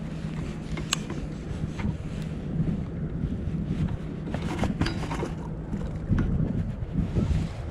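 Wind buffeting the microphone over a steady low hum, with a few light clicks.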